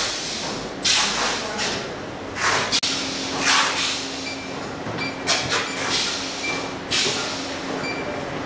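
A handheld barcode scanner beeping with short high beeps, several times in the second half, as boxes are scanned. Around it come repeated short bursts of hiss, the loudest sounds, over a steady low hum.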